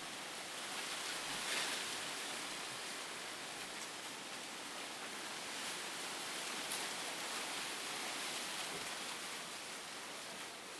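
Steady rustling hiss of wind moving through palm fronds and forest leaves, swelling briefly about a second and a half in.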